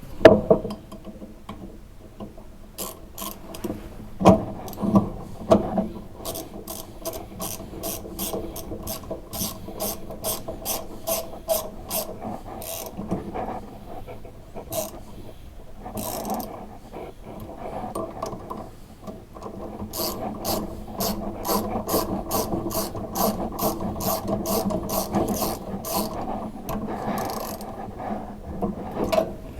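Hand ratchet wrench clicking steadily, a few clicks a second, with a couple of short pauses.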